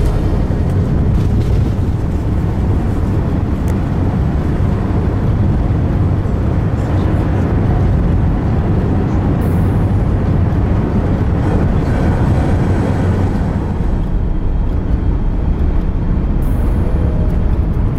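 Airbus A380 takeoff heard from inside the passenger cabin: the Rolls-Royce Trent 900 engines at takeoff power and the rush of air make a loud, steady, deep rumble with a hiss over it.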